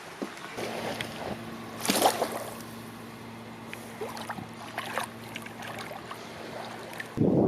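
A steady low mechanical hum with scattered knocks and a brief loud clatter about two seconds in; just before the end it cuts abruptly to a loud, even rush of water.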